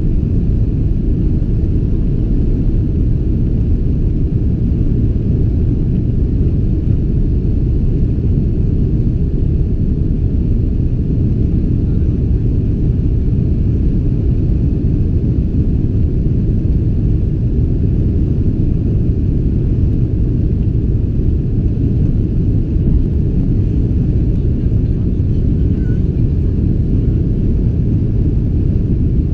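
Inside the cabin of a Boeing 777-300ER climbing out just after takeoff: a steady, loud, low rumble of its GE90 engines at climb power and the rushing air.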